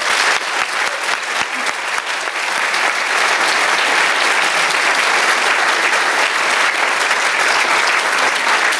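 Audience applauding: many hands clapping steadily, growing a little louder over the first few seconds and then holding.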